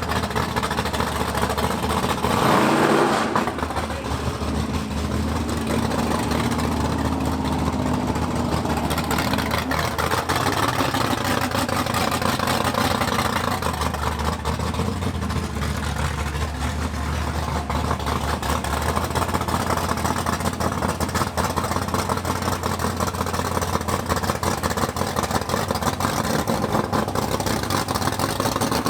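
First-generation Pontiac Firebird drag car's V8 idling with the uneven lope of a big cam through its exhaust. It is blipped once, about three seconds in.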